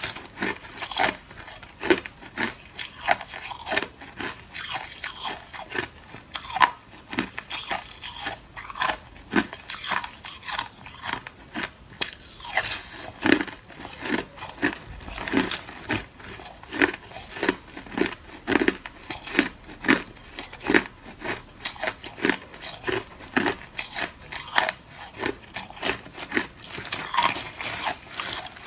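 Hard crushed ice being bitten and chewed close to the microphone: a steady run of sharp, crackling crunches, about two a second.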